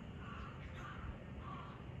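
Faint short animal calls, a few in quick succession, over a steady low background rumble.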